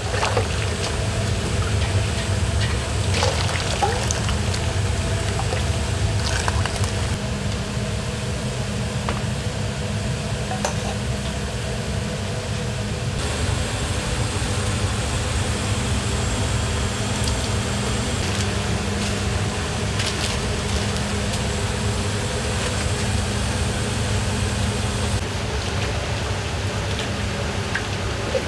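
Hot udon broth being ladled and poured through a cloth strainer, with a few short clinks of the metal ladle, over a steady low rumble from the kitchen range and its steaming pots.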